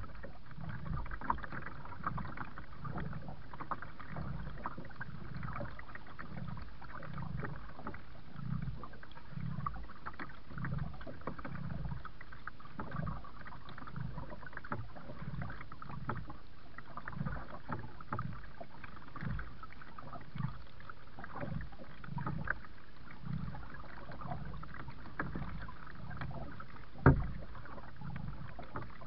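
Kayak paddling: regular paddle strokes swishing through the water, about one a second, with small splashes and ticks. One sharp knock near the end.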